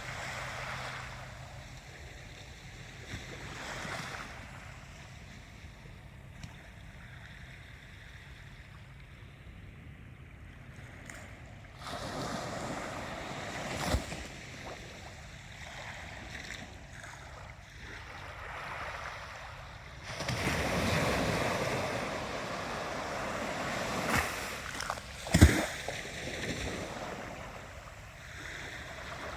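Ocean waves washing in, swelling louder twice, about twelve and twenty seconds in, then easing back. Two sharp thumps stand out, the louder one near the end.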